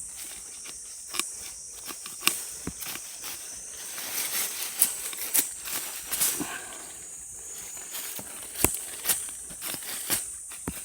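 A hand digging tool chopping and scraping into stony mountain soil to dig out a wild bellflower root, irregular knocks and scrapes with a few sharper strikes. A steady high insect drone runs underneath.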